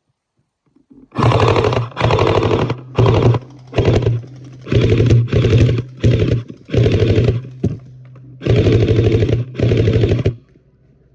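Electric toy gel blaster firing on full auto in repeated short bursts, about ten of them, each a rapid rattle of shots over the whine of its motor and gearbox.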